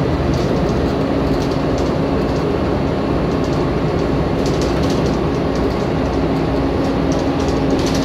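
Volvo B7TL double-decker bus with its Volvo D7C engine, heard from inside the saloon while under way: a loud, steady engine and road rumble with a steady whine over it, the 'hoover' sound these buses are known for.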